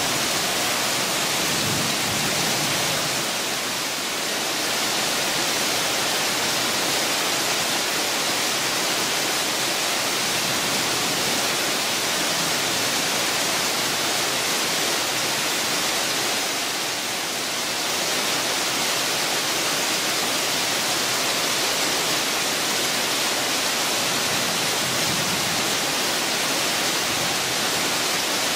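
Heavy rain pouring down steadily on dense garden foliage, a continuous hiss.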